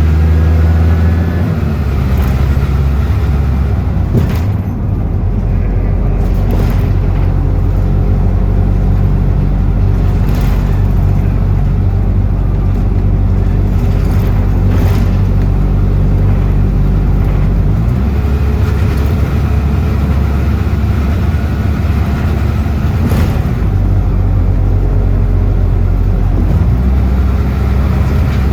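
Bus engine running as the bus drives along, heard from on board, its note shifting in steps several times as it changes speed.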